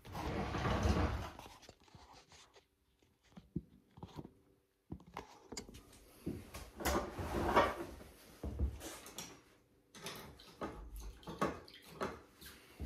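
Scattered rustling, scuffs and light knocks of someone moving about and handling things close to the microphone, with a longer rustle right at the start.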